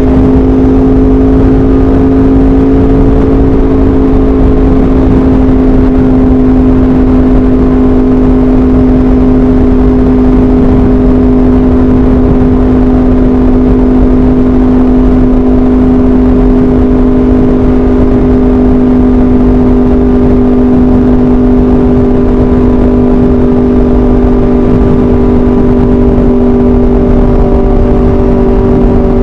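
Aprilia RSV4 RF's V4 engine through an SC-Project CRT exhaust, running at a steady cruising pitch under heavy wind rush on the on-board microphone. The pitch sinks slightly near the end.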